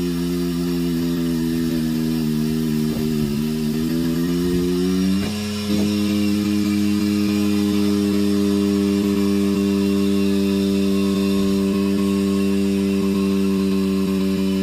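Motor of a portable truck tire changer running with a steady hum. Its pitch sags slowly as the tool works around the tire bead, drops out briefly about five seconds in, then runs steady again.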